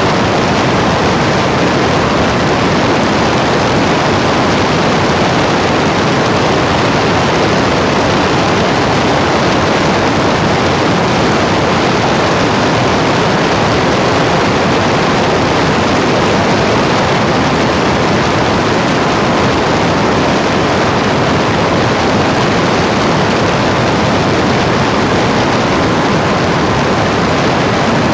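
A loud, unchanging hiss of noise that spreads evenly from low to high pitch, with no tone, rhythm or break.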